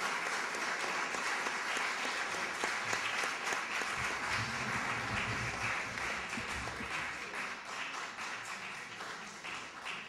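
Audience applauding, a steady patter of many hands that thins out over the last few seconds, with a low rumble from about four to seven seconds in.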